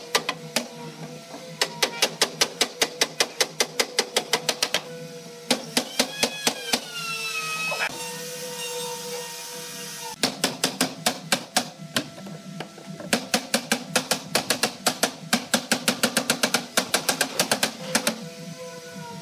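Rapid, evenly spaced tapping from woodworking work, about six sharp clicks a second, in several runs of a few seconds each over a steady hum.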